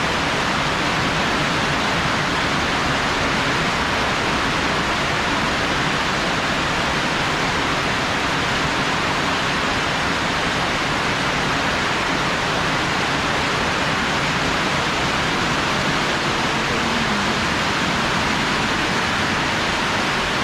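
Heavy rain pouring down in a steady, dense hiss that doesn't let up.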